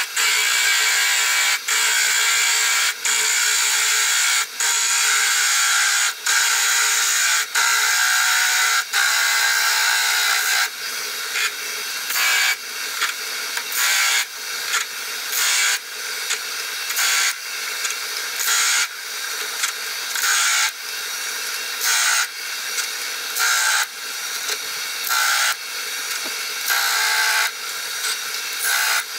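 Wood lathe turning a wooden spindle while a hand-held turning tool cuts grooves into it: a steady scraping hiss of the cut over the lathe's hum. It breaks off briefly about every second and a half as the tool is lifted away, then more often, about twice every second and a half, in the second half.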